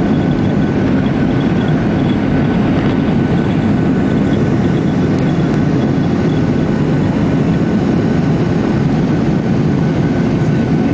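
Boeing 737 jet engines at takeoff thrust, heard from inside the cabin during the takeoff roll: a steady, loud noise with a faint high whine.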